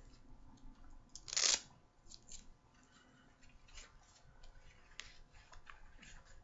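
Handling noise from a football receiver glove: a short rasping rustle about a second and a half in, then scattered faint clicks and rustles.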